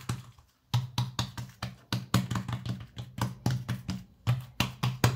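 Hands patting and pressing oiled msemen dough flat on a wooden worktop: a fast run of soft knocks, several a second, after a brief pause near the start.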